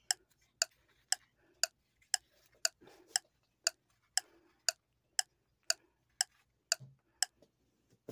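Hard plastic pointer tapping a laminated number chart about twice a second, one tap per number, with faint whispered counting between the taps.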